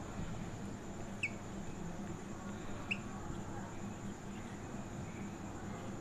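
Quiet room background with a couple of short, high squeaks from a marker pen writing on a whiteboard, one about a second in and another near three seconds in.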